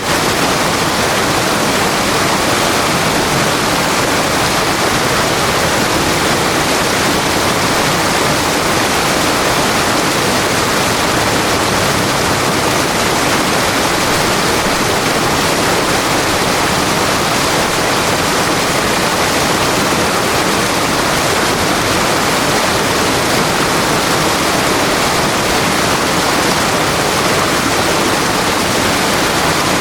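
River water rushing and splashing over rocks in a steady, unbroken stream, close and loud.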